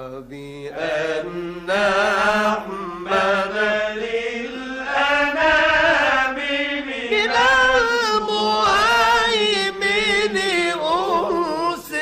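A solo male voice chanting an Islamic ibtihal (devotional supplication) in long, ornamented melismatic phrases with wavering pitch. It breaks off briefly a few times between phrases.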